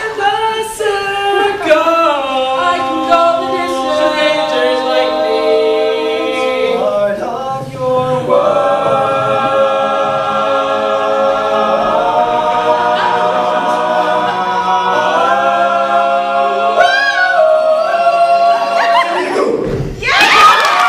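Men's a cappella group singing in close harmony without instruments, moving into long held chords. The singing stops about 20 s in and the audience breaks into cheering.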